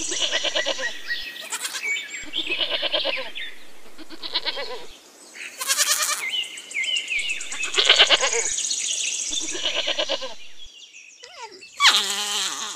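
Goats bleating: a string of wavering, quavering calls a second or two apart. The bleats stop about ten seconds in, and a short, different call starts near the end.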